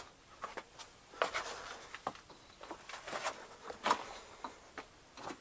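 Quick, irregular crunches and scrapes of loose rock and dirt, over a dozen short ones with no steady rhythm.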